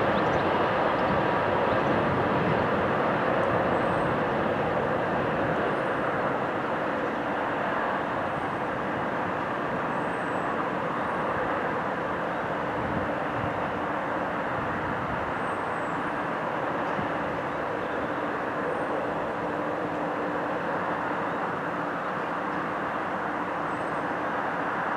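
Freight train running away along the main line, a steady rumble of wheels and wagons that eases a little over the first several seconds and then holds.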